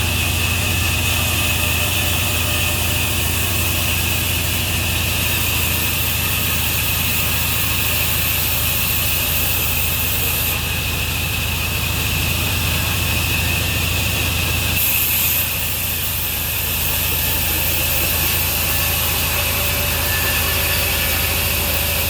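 Sawmill saw running steadily while sawing a eucalyptus log: a loud low motor hum under a high steady whine and hiss. The low hum drops off about two-thirds of the way through.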